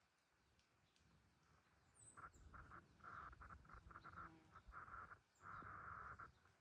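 Faint outdoor ambience with a few short, high bird chirps, over a rough hiss that starts about two seconds in and comes and goes in stretches.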